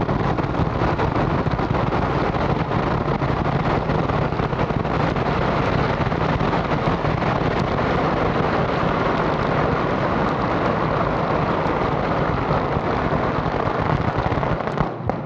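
Fireworks going off in a dense, continuous barrage of crackles and bangs that merge into one steady noise. It cuts off abruptly near the end.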